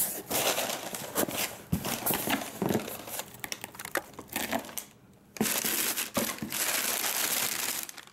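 Cardboard box flaps being folded open and brown kraft packing paper crinkling as it is handled. The noise comes in two spells, with a short lull about five seconds in.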